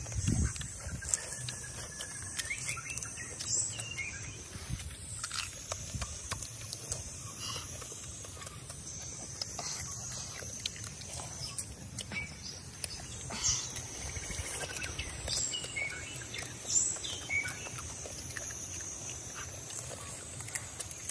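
Grilled crab shells being cracked apart and chewed close by: scattered crunches and sharp clicks with wet munching, over a steady high-pitched background drone.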